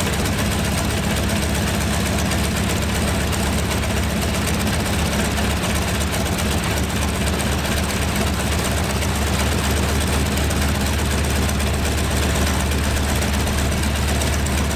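Stinson L-1's Lycoming R-680 nine-cylinder radial engine running steadily on a freshly fitted, overhauled magneto.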